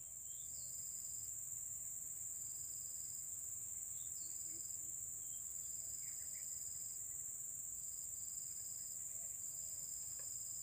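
Steady high-pitched insect chorus in the surrounding forest, with short, level higher-pitched calls from another insect or bird breaking in and out about once a second.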